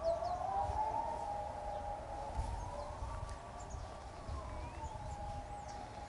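Civil defence siren wailing in a slow rise and fall, the Swiss 'general alarm' signal. Birds chirp faintly over it.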